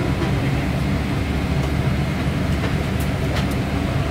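Steady low rumble inside the cabin of a Boeing 777-200 with Pratt & Whitney engines as the airliner taxis, with a few faint ticks about three seconds in.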